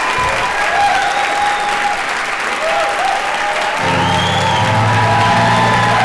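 Audience applauding while music plays; lower notes join the music about four seconds in.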